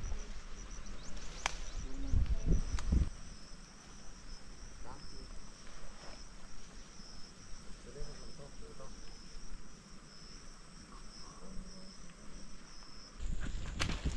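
Insects chirring steadily in vegetation, a continuous high-pitched pulsing trill. A few loud low thumps come about two to three seconds in, and a low rumbling starts near the end.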